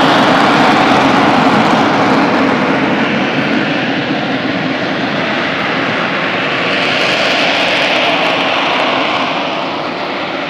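Aircraft engine noise from an airplane making a low pass: a loud, steady rushing sound that eases off somewhat near the end.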